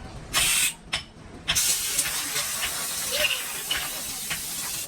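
A short hissing burst, then from about a second and a half in a steady, loud hiss of a pressurised jet.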